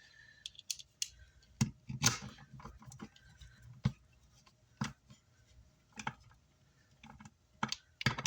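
About ten light clicks and taps at irregular intervals, from small tools and metal hardware being handled on a workbench.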